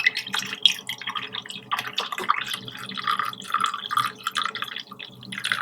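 Hot ginger and tulsi tea trickling and dripping, with many irregular small splashes and gurgles.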